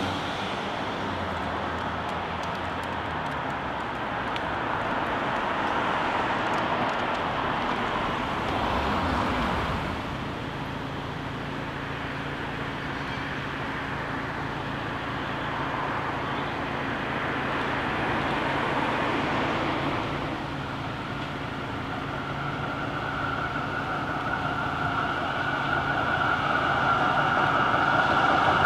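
Street traffic: cars passing, with an A2 class tram approaching. The sound grows louder over the last several seconds, and a steady high whine rises in near the end.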